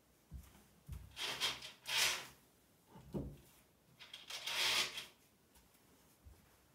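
Rummaging behind a fabric curtain on a wooden under-counter shelf. There are two rustling swishes, each about a second long, with a few soft knocks in between as things are moved and a rolling pin is pulled out.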